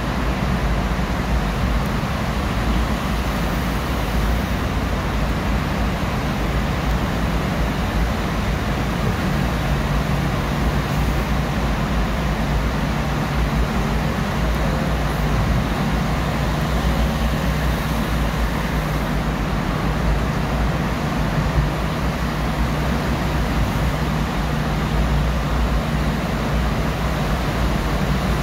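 Steady road and engine noise of a moving car heard from inside its cabin in a road tunnel: a constant low rumble of tyres and engine with a faint steady hum.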